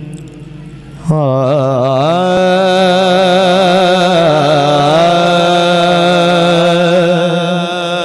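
A man's voice singing long drawn-out, wavering held notes into a microphone over a PA system, in the slow opening of a Punjabi Sufi kalam; the singing comes in sharply about a second in.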